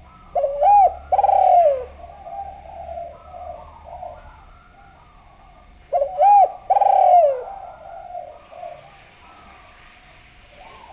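Spotted dove (derkuku, tekukur) cooing: two loud call phrases about five seconds apart, each a short rising-and-falling note followed by a longer falling coo, with fainter cooing in between.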